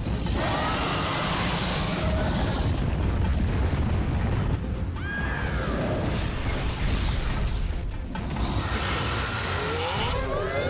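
Cartoon soundtrack: music over a heavy low rumble with booms, and short squeaky cries that glide up and down about half a second in, around five seconds in, and near the end.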